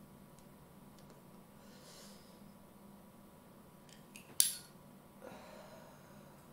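A few faint clicks, then one sharp loud click of a handheld lighter about two-thirds of the way in, followed by a soft breathy exhale of cigarette smoke.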